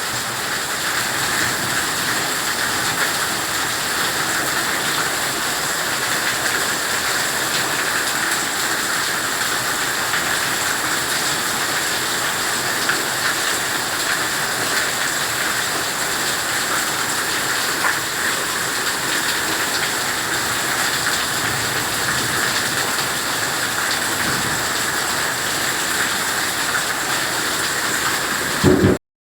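Heavy rain pouring down in a steady downpour, a dense even hiss. A brief bump comes just before it cuts off suddenly near the end.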